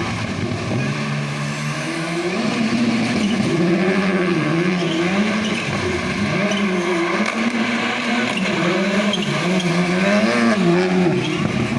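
Rally car engine revving hard, its pitch rising and falling again and again as the throttle is worked and the gears change.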